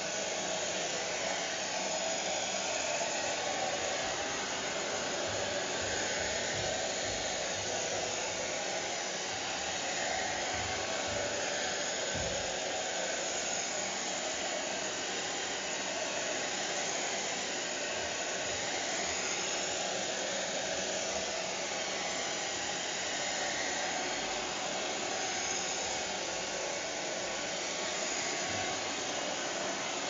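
Hair dryer running steadily: a continuous, even rush of fan and air.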